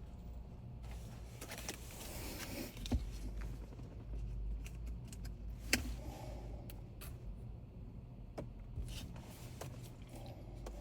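Scattered small clicks, taps and brief scrapes of tools and small parts being handled during a phone repair, over a steady low hum.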